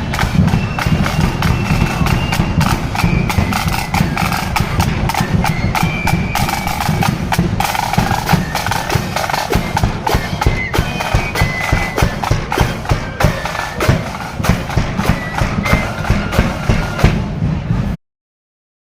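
Marching band playing in a parade: a high, piping melody over rapid snare drumming and a heavy bass drum. It cuts off suddenly near the end.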